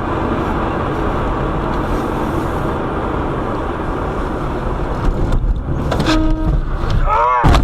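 Steady road vehicle and traffic noise, with a short horn-like tone about six seconds in and a brief wavering rising-and-falling tone near the end.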